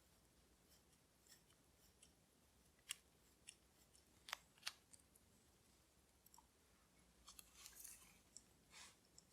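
Faint, sparse clicks of small metal watchmaker's tools against watch parts during reassembly, with three sharper ticks in the middle and a soft rustle near the end.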